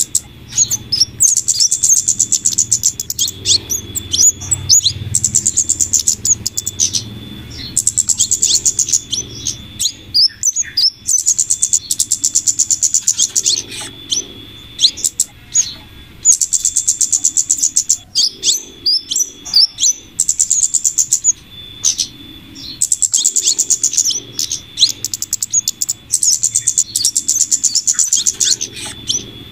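Bird-lure recording of small songbirds chattering: high, very rapid trilled calls in bursts of a second or two, repeated over and over over a faint low hum. It is a mix of flowerpecker (cabe-cabean) calls and female scarlet minivet calls, played to draw flowerpeckers in.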